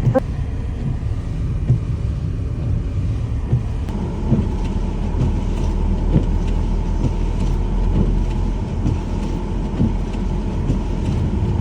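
Car driving on snowy, uncleared road, heard from inside the cabin: a steady low rumble of engine and tyres with scattered small knocks and crackles. A faint steady tone joins about four seconds in.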